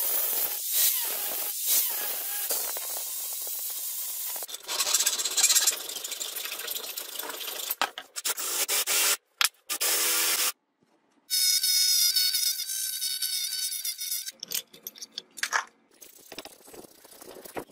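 A run of metalworking sounds on a metal knife piece. First an angle grinder cuts into it with a hissing grind. After a short break an electric drill bores through it with a steady whine. Near the end a hand file rasps across it in short strokes.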